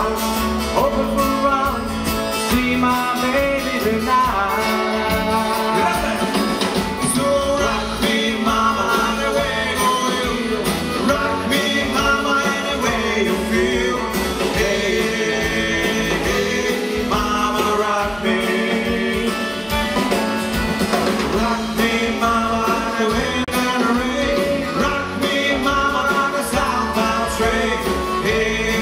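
Country-style song with guitar playing, continuing without a break.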